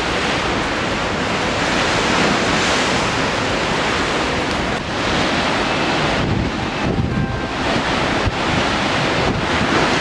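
Gale-force wind, force 7 to 8, buffeting the microphone over the steady rush of a rough, whitecapped sea.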